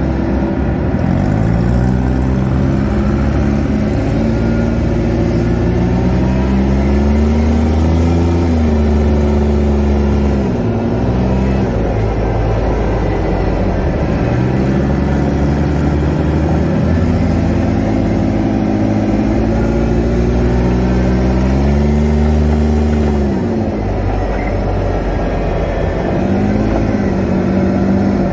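Engine of a Polaris off-road buggy, heard from on board while driving. Its pitch climbs steadily as the buggy speeds up, drops as it eases off about ten seconds in and again about twenty-three seconds in, then climbs once more near the end.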